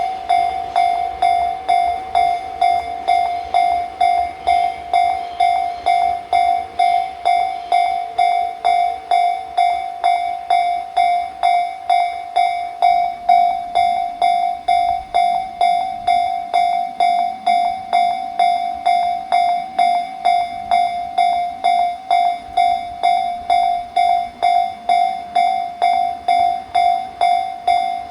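Japanese level crossing warning alarm on the Tobu Railway, ringing its repeated single-pitched 'kan-kan' tone at an even pace of roughly two strikes a second: the signal that a train is approaching and the barriers are down.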